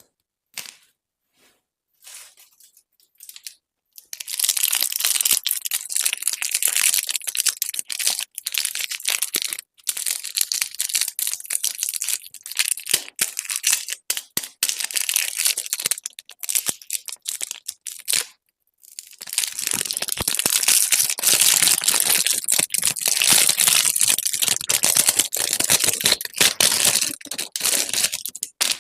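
Close-up crinkling and tearing of plastic candy wrappers: a few faint clicks, then about four seconds in two long spells of dense crackling rustle, broken by a short pause about two-thirds of the way through.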